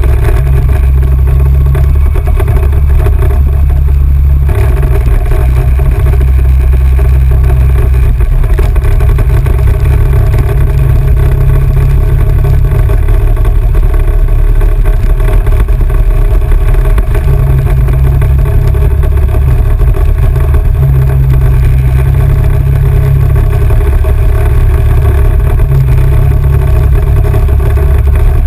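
ATV engine running steadily while riding along a dirt trail, heard from a camera mounted on the quad, under a loud low rumble of wind on the microphone.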